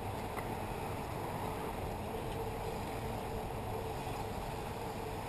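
1/10-scale 2WD RC buggies running around an off-road track in the distance: a steady motor whine under a continuous low rush of wind on the microphone.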